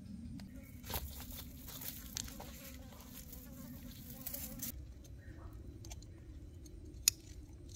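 Insect buzzing close by, stopping abruptly about five seconds in, with scattered light clicks and one sharp click near the end.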